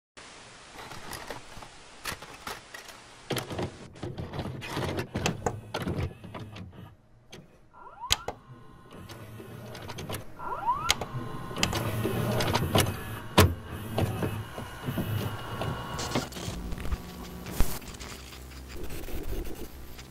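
Videocassette recorder sound effects: a tape being loaded and played, with motor whirring, many mechanical clicks and clunks, and tape hiss and static.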